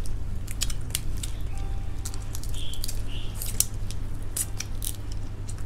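Salt-roasted crab shell crunching and cracking as it is bitten and chewed: a run of sharp, irregular crackles over a steady low hum.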